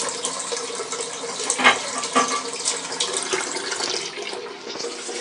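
Water running and splashing into an Armitage Shanks Sandringham toilet cistern as it refills after a siphon flush.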